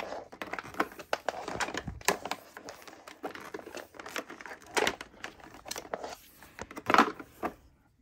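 An upright vacuum's power cord being wound by hand around its cord hooks. The cord rubs and clicks irregularly against the hooks and the plastic body, then stops near the end.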